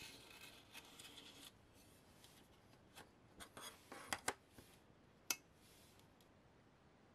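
A hobby blade drawn along a steel ruler, scraping a score line into a styrene plastic model car body, for about the first second and a half. Several sharp clicks follow over the next few seconds, the loudest a little after the fourth second and one a little after the fifth.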